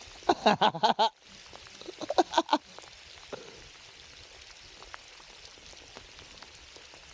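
Steady rain falling, an even hiss with scattered faint drop ticks. A voice speaks briefly in the first couple of seconds.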